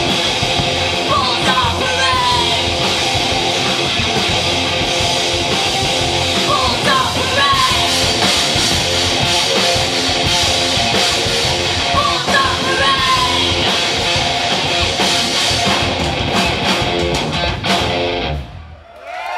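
Live rock band playing heavy rock with distorted guitar and shouted vocals. The song stops abruptly near the end.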